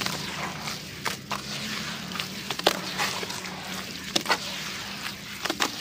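Hands squeezing and kneading wet, gritty grey paste in a bucket of water: a continuous wet squelching and sloshing, broken by a handful of sharp wet slaps. The loudest slap comes about two and a half seconds in, and others come near four and five and a half seconds.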